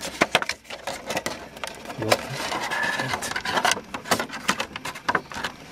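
Cardboard box being opened by hand and its contents slid out: papery rustling and scraping with many small crackles and clicks.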